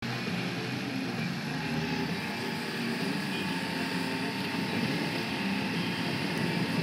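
Outboard motor running steadily at speed, driving a small boat along, over the rush of water and wind.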